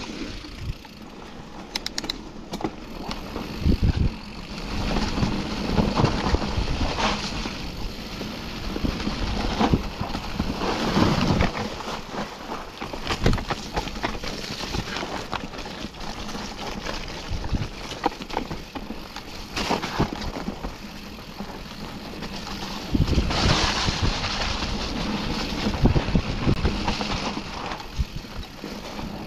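Mountain bike riding down a muddy, leaf-strewn trail: tyres rolling through mud and wet leaves, with frequent knocks and rattles from the bike over bumps, and louder stretches on rougher ground.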